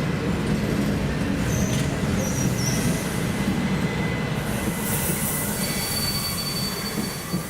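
Train wheels squealing on the rails over a low rolling rumble: a few short high squeaks, then a steady high-pitched squeal held through the last two seconds.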